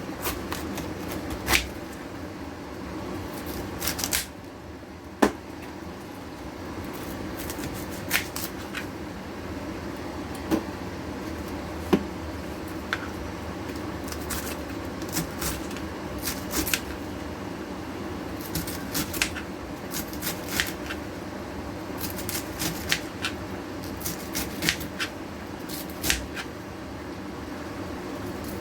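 Irregular light clicks and taps of kitchen handling, a few a second at most, over a steady hum.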